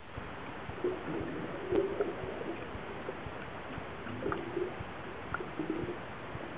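Pool water heard through an underwater camera: a steady hiss with a few short low sounds and faint ticks.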